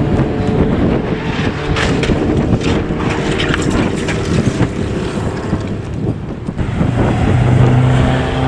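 Race car engines running past a corner, with wind buffeting the microphone; one engine grows louder near the end as a car comes closer.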